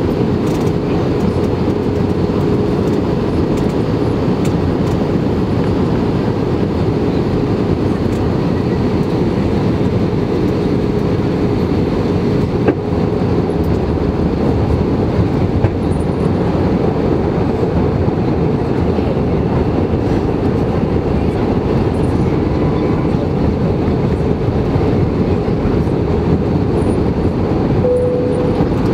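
Steady cabin roar of an Airbus A320-216 on approach with flaps extended, heard from a window seat over the wing: engine and airflow rumble with a steady low hum running through it.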